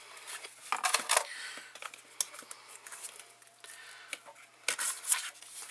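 A rigid cardboard gift box and its foam insert tray being handled as the tray is lifted out: soft scraping with a few sharp clicks and knocks about a second in and again near the end.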